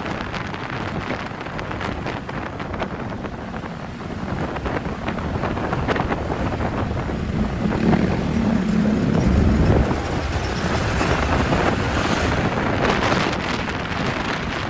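Wind buffeting the microphone while travelling along a road, over the steady noise of the vehicle and traffic. A louder low rumble comes up about eight seconds in and eases off around ten seconds.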